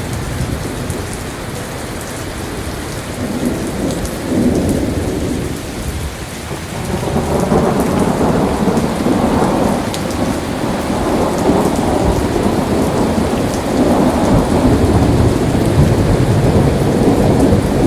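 Heavy tropical downpour: a dense, steady rush of rain with low rolling rumbles underneath. It grows louder about seven seconds in.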